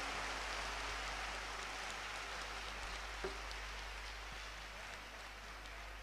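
Large audience applauding, an even patter of many hands clapping that slowly dies down, with a single small knock about three seconds in.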